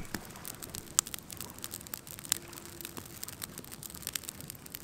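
Newly lit campfire kindling of dry pine needles and small sticks crackling, with irregular sharp pops, the loudest about a second in.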